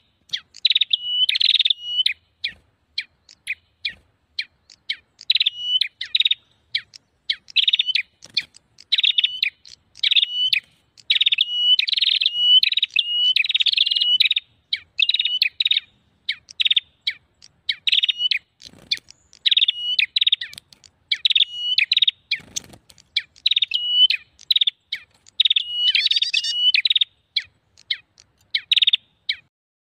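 Prenjak birds calling in a rapid, continuous chatter of sharp high chirps and short repeated trilled phrases with only brief gaps. This is the noisy, agitated prenjak call ('prenjak ribut') used as a trapping lure.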